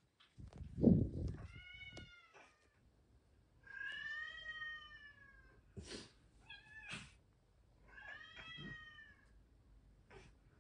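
Cat meowing three times, each meow about a second long. About a second in there is a louder low thump and rustle, as of the cat's body brushing the microphone, and a couple of sharp clicks follow later.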